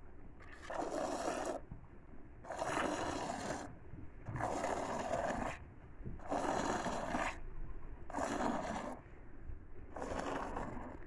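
Hand milking a goat: streams of milk squirting into a plastic bucket of frothy milk, each squeeze a hiss of about a second, six times at roughly two-second intervals.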